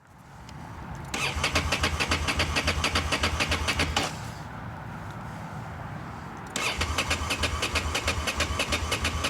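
Ducati Monster's L-twin engine being cranked on the electric starter in two attempts, a rapid even chugging that never catches and runs. It cranks but won't start because of a fuel-system fault.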